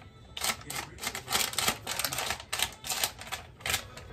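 Butter wrapper crinkling as it is peeled off a block of butter and crumpled, a quick irregular run of crackles.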